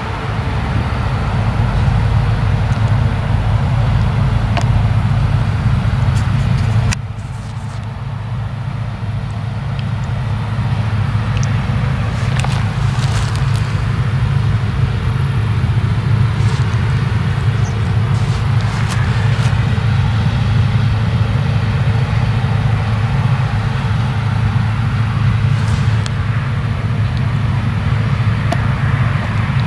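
Two Claas Lexion combine harvesters running while cutting grain, a steady, loud, low drone of engines and threshing. The level drops suddenly about seven seconds in, then slowly builds again as the machines come closer.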